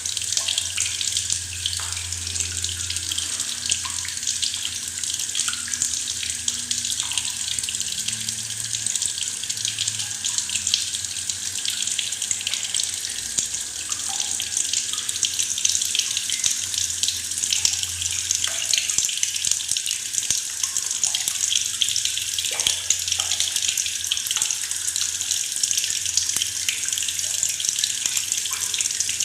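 Tap water running steadily into a plastic bucket, a continuous splashing rush with small gurgles and bubbling blips scattered through it.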